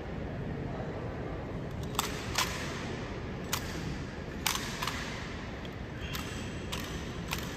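Camera shutters clicking sharply at irregular intervals, about nine times, over a steady background hum of a crowded square.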